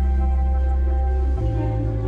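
Background music of held tones and chords over a sustained low bass note; the bass note changes about one and a half seconds in.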